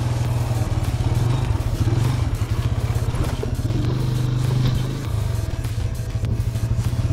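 Motorcycle engine running on an off-road ride, its exhaust pulsing quickly as the revs rise and fall, easing off briefly about five seconds in.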